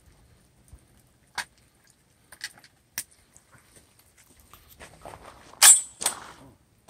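A 12-gauge shotgun being loaded by hand: a few separate sharp metallic clicks, then near the end two louder clacks close together over rustling, as shells go in and the action is worked.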